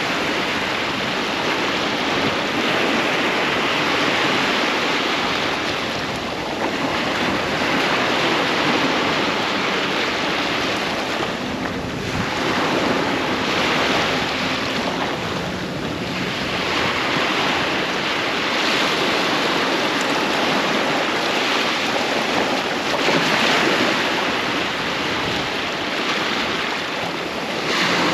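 Sea waves breaking and washing up a sandy beach, a continuous surf that swells and eases every few seconds, with some wind on the microphone.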